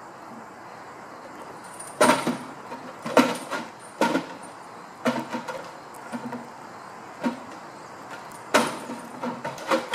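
A hanging enrichment feeder knocking and rattling on its fitting as a giraffe nudges it. The knocks are irregular and come in short clusters.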